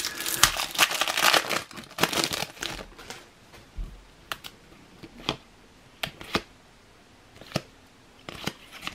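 A plastic foil trading-card booster pack being torn open and crinkled for about three seconds. Then a few separate soft clicks and flicks as the cards are taken out and fanned through.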